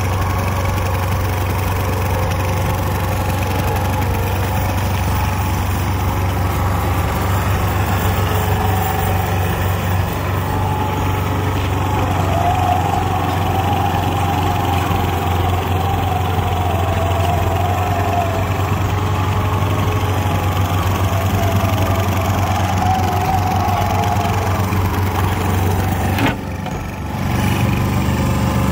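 Diesel engine of a LeeBoy 1000 asphalt paver (Hatz 40 hp) running steadily with a deep, even hum. A higher whine rises over it through the middle stretch. Near the end the level dips briefly and the running sound changes tone.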